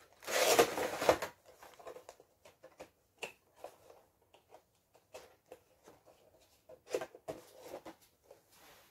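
Rustling of cardboard and plastic packaging as a Funko Pop vinyl figure is put back into its box, loudest in the first second, followed by scattered light clicks and taps of handling.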